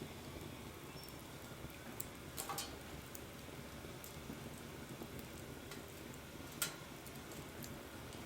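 Wood campfire crackling, with scattered small pops and snaps over a low steady hiss of the burning fire, and one sharper pop about two-thirds of the way through.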